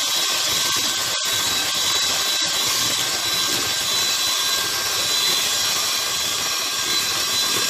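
Electric hand mixer running steadily, its beaters whipping eggs and sugar in a plastic bowl, with a steady high whine from the motor.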